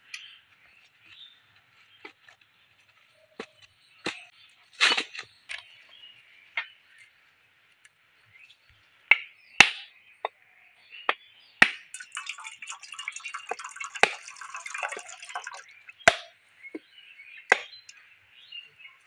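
Sharp knocks of metal on coconut: a husked coconut's shell is tapped with a knife blade around its middle to crack it in two, a series of single strikes a second or two apart.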